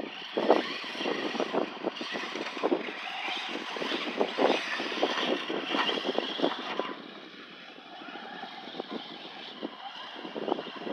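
Traxxas Slash electric RC short-course truck running hard on dirt: the motor whines and the tyres churn with many short knocks and clatters. It eases off about seven seconds in.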